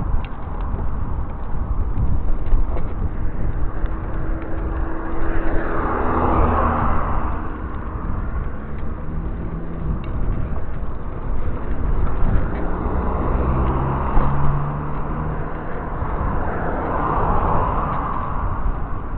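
Wind buffeting the microphone of a camera on a moving bicycle, with cars passing on the road alongside, one swelling past about six seconds in and another near the end.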